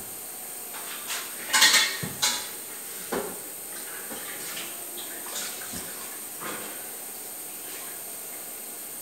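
Kitchen pots, dishes and utensils clattering as they are handled: a quick run of loud metallic clinks and knocks about one and a half to two and a half seconds in, another knock just after three seconds, then scattered lighter knocks.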